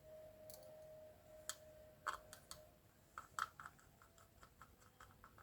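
Faint scattered small clicks of the tiny screw that holds an NVMe SSD in its M.2 slot being fitted and turned in, with a quick run of ticks about three seconds in.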